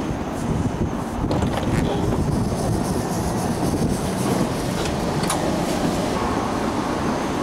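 Kansas City streetcar standing at the platform just after stopping, a steady rumble of the tram and street noise with a few short clicks as its door is opened and the rider boards.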